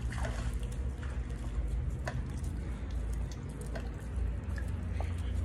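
Swimming-pool water lapping and splashing lightly, with scattered drips, over a steady low rumble.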